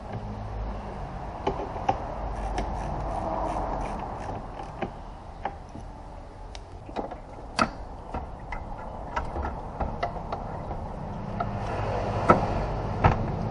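Hands handling a car's plastic radiator fan shroud assembly: scattered light clicks and knocks with bouts of rustling, over a low steady hum. Two sharper knocks come near the end.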